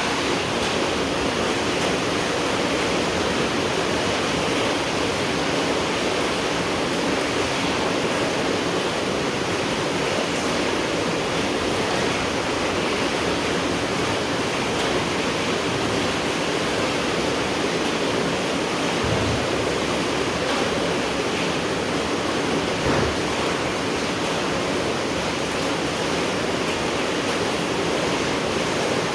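Steady night rain falling, an even continuous hiss and patter with no let-up. A soft low knock stands out briefly about three-quarters of the way through.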